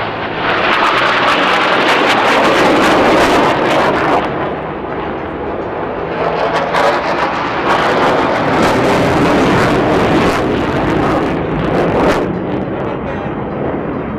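Jet noise from SEPECAT Jaguar jets with twin Adour turbofans passing overhead, a loud, even rushing sound with a crackle at its loudest. It swells twice and fades near the end as the jet moves away.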